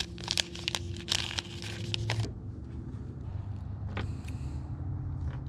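Plastic hook packet crinkling and rattling in hands as it is opened, for about two seconds, then a steady low hum with a single click about four seconds in.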